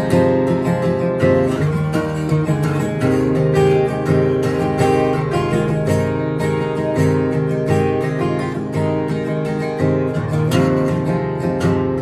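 Solo steel-string acoustic guitar, picked in a steady, busy rhythm of quick note attacks.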